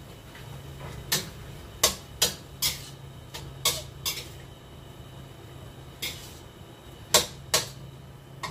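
Metal spatula knocking and scraping against a steel wok while stirring mushrooms, in irregular clinks: a cluster in the first few seconds, then a few more near the end, over a steady low hum.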